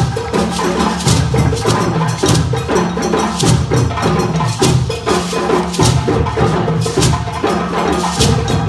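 Group of djembe hand drums playing a fast, steady interlocking rhythm: deep bass strokes under sharp, cracking high slaps.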